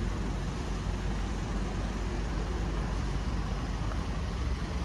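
Steady city street traffic noise, a continuous low rumble of passing cars.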